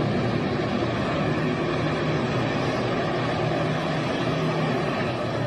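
A vehicle engine running steadily under a rushing noise, with no clear changes.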